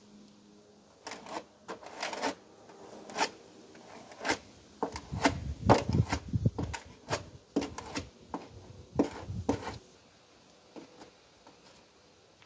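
Paintbrush stroking and dabbing paint onto a car's steel door bottom and sill: a run of short, scratchy brush strokes, busiest and heaviest in the middle, then stopping about two seconds before the end.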